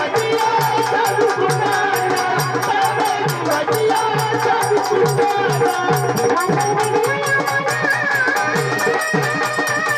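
Marathi folk song with a singing voice over a steady, rhythmic drumbeat.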